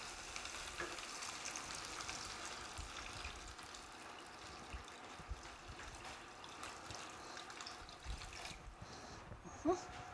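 Water poured from a glass pitcher into a large stainless steel pot of lentils in tomato sauce: a steady faint splashing that stops about eight and a half seconds in. A short sound follows near the end.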